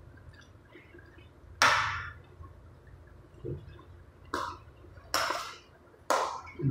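A metal spoon stirring chopped green vegetables in a steel pot: four short scraping strokes, the first about one and a half seconds in and the other three close together near the end.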